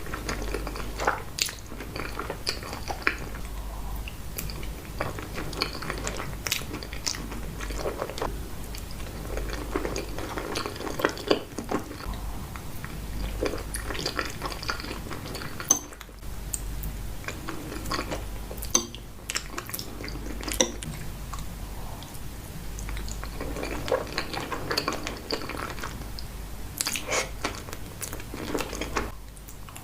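Close-miked chewing of creamy pasta, with wet mouth sounds and frequent short sharp clicks.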